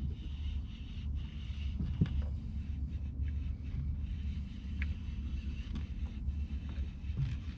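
Wind buffeting the microphone over a steady low rumble, with a few short faint clicks.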